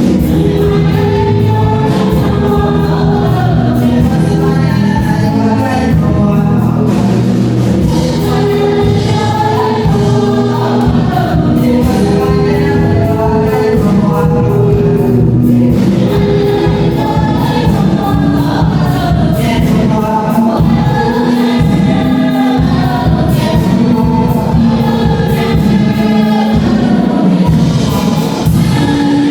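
Choir singing gospel music with instrumental accompaniment, in long held notes.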